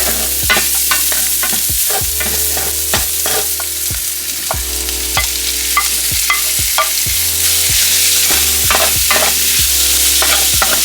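Garlic and onions sizzling in hot olive oil in a frying pan, with a utensil stirring them and clicking against the pan about once or twice a second. A steady low hum runs underneath.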